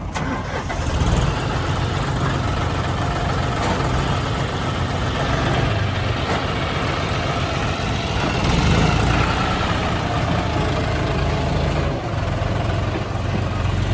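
Heavy machine's engine running steadily, growing a little louder a bit past the middle.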